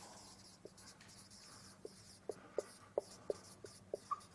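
Dry-erase marker writing on a whiteboard: a run of short, faint squeaks and taps as the strokes are made, coming more often in the second half.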